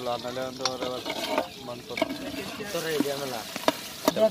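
A steel ladle stirring fish curry in an aluminium pot, with a few sharp metal clinks against the pot, over people talking.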